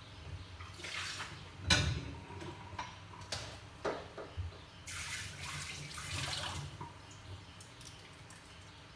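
A lidded pot of tomato and tamarind broth simmering on a stovetop: irregular bubbling and pops, the loudest about two seconds in, with a stretch of steadier bubbling from about five to six and a half seconds in.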